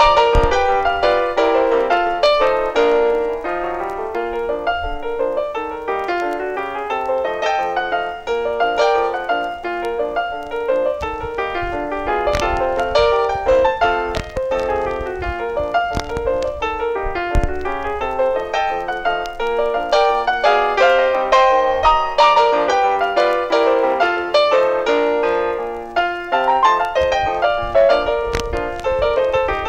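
Piano music playing busy, quick runs of notes without a break.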